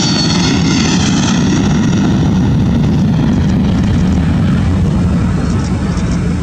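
Embraer E195's twin General Electric CF34-10E turbofans at takeoff thrust as the jet rolls and lifts off: a loud, steady roar. High whining tones waver and fade in the first second, and the roar eases slightly near the end.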